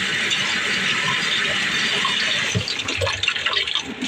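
Water running from a kitchen tap into a sink in a steady rush, with a few light knocks and clatters in the second half.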